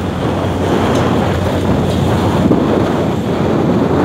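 Wind buffeting the microphone over the rush of seawater along a fishing boat's hull, with a steady low hum underneath.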